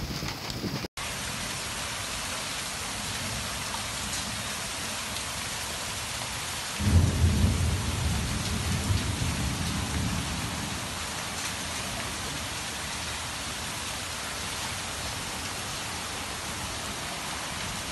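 Heavy rain and rushing floodwater make a steady hiss. About seven seconds in, a thunderclap breaks in with a loud low rumble that fades over about three seconds.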